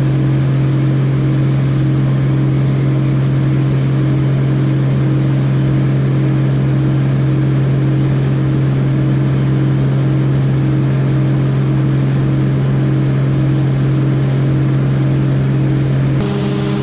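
An engine running at a steady speed: a loud, constant low hum with a faintly pulsing overtone.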